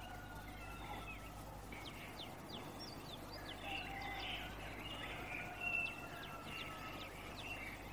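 Faint, scattered bird chirps over a steady low background rumble.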